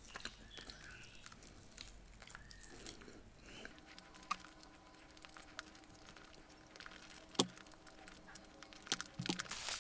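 Faint, close-miked chewing of chicken wing with wet lip smacks and small clicks, one louder smack about seven and a half seconds in.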